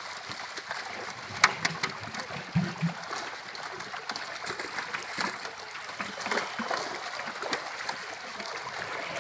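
Water splashing and churning as fish thrash in a net gathered in a shallow pond, with many short sharp slaps and splashes, the loudest about one and a half seconds in.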